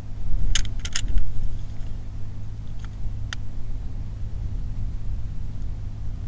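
A motor hums steadily and low. A few sharp clicks come between about half a second and a second in, and one more about three seconds in.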